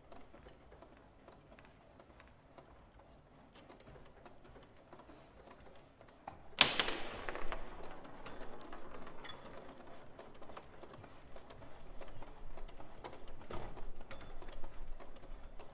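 Foosball table in play: rods and plastic figures clicking and knocking in scattered taps. About six and a half seconds in, a single loud hit rings out and fades over about two seconds, followed by denser clicking.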